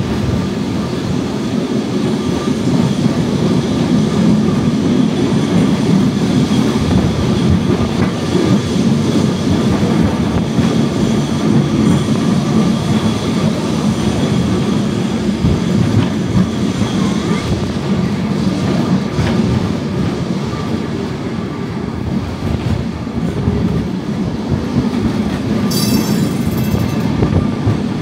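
Lisbon's Tram 24 electric streetcar running along its rails, heard from on board: a continuous rumble of wheels and running gear with clickety-clack over the rail joints and a thin wheel squeal. A short high-pitched sound stands out about two seconds before the end.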